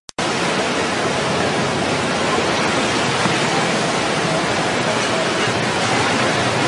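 Steady rushing of the Ganga river in heavy flood, fast muddy floodwater surging past. The sound cuts out briefly right at the start.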